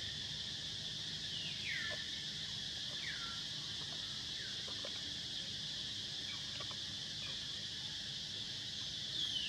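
Outdoor ambience: a steady, high insect buzz, with a few short bird calls that each slide downward in pitch, four of them scattered through, the last near the end.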